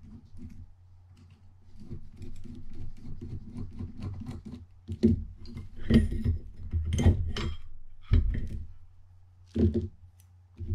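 Small metal handling sounds from taking apart a Penn Senator 114H reel: a soft rattle as a screwdriver backs out the side-plate screws, then several sharp clicks and knocks in the second half as the side plate comes off the frame and the screws are set down.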